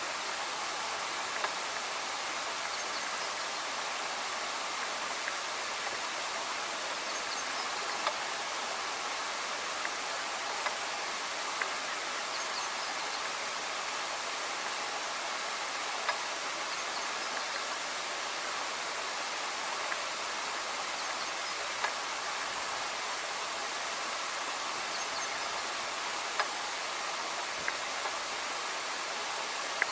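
A steady, even rushing hiss, like running water or wind, with a few brief sharp clicks.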